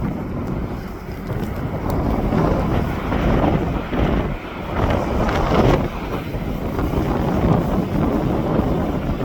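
Gusty wind buffeting a phone's microphone: a loud, rough rumble that swells and dips irregularly.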